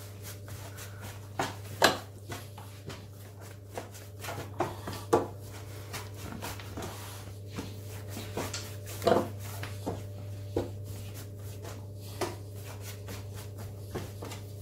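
Hands kneading and shaping a large ball of bread dough on a floured countertop: irregular soft slaps and thuds as the dough is pressed, folded and pushed against the counter, the strongest about two, five and nine seconds in. A steady low hum runs underneath.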